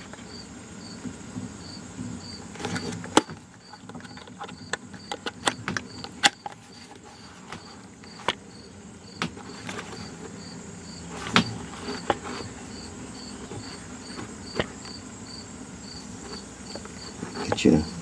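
Scattered clicks and clacks of a handheld digital multimeter being handled and its range dial switched, the loudest about three seconds in, about eleven seconds in and near the end. Under them a faint high chirp repeats evenly two or three times a second.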